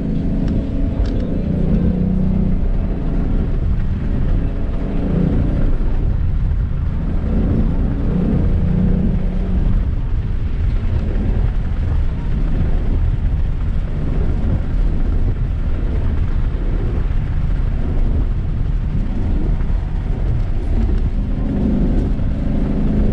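Car engine pulling hard, its note swelling and easing every few seconds, over a heavy low rumble of road and wind noise.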